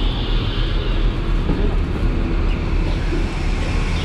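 Steady engine rumble and roar of airport apron noise, even and unbroken, with the deep rumble strongest.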